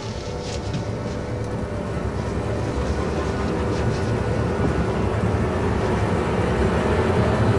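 A steady rumbling drone with faint held tones, slowly growing louder.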